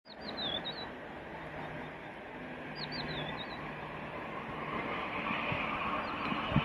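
Steady open-air rumble that grows slightly louder partway through. A small bird twitters two short chirping phrases over it, and there is a single sharp knock near the end.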